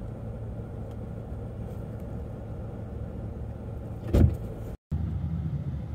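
Car on the move, a steady low rumble of engine and road noise. One sharp loud knock comes about four seconds in, then the sound drops out for an instant and returns as a louder, deeper rumble.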